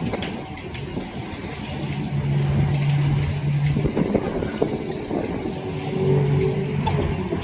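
Diesel engine running, with a steady low hum that comes in about two seconds in, fades near four seconds, and returns around six seconds.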